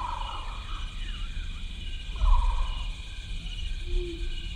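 Outdoor woodland ambience: a steady insect drone with short chirps repeating at regular intervals, over a low rumble of wind on the microphone that swells briefly about two seconds in. Near the end a held low tone begins.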